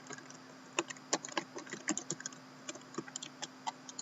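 Computer keyboard typing: irregular quick key clicks, several a second, while a list is entered into a randomizer.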